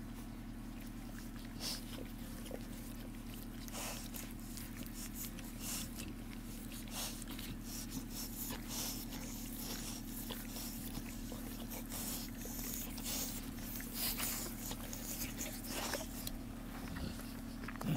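Quiet snuffles and small sleepy noises from a pile of newborn bullmastiff puppies, with scattered clicks and rustles over a steady low hum.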